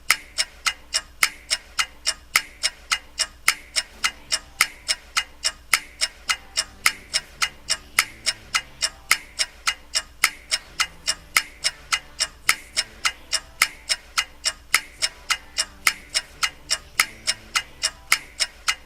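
Ticking clock, fast and even, about three sharp ticks a second.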